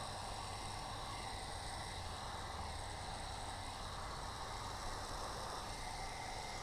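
Electric heat gun running steadily: an even blower hiss with a low hum, used for the final post-heat that sets wrap vinyl on a door handle.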